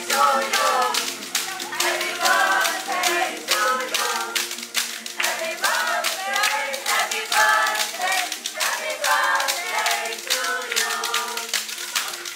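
A group of people singing together over backing music, with hand clapping along.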